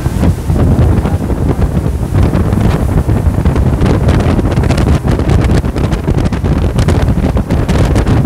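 Motorboat running at speed: wind buffeting the microphone over the rush of water along the hull, with many short gusts and slaps through the middle.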